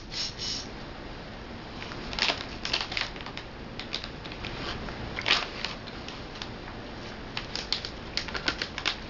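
Plastic snack bag being handled, giving irregular crinkles and sharp clicks, busiest about two, three and five seconds in and again near the end.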